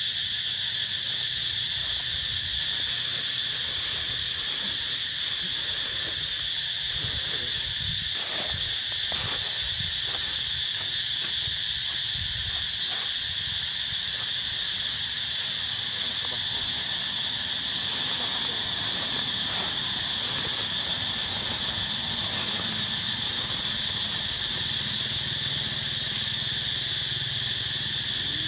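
Steady, high-pitched chorus of insects droning in several pitches at once, with a few soft low knocks or rustles between about seven and thirteen seconds in.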